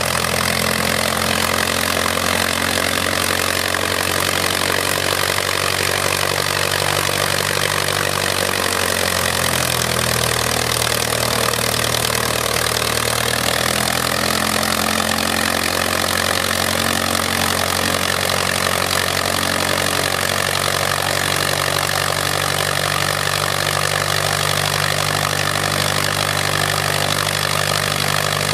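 Antique biplane's inline engine running steadily with its propeller turning, the engine speed dropping about nine seconds in and picking back up a few seconds later.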